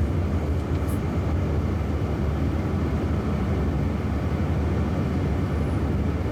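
Steady road and tyre rumble inside the cabin of a moving electric Jaguar I-Pace, with no engine sound.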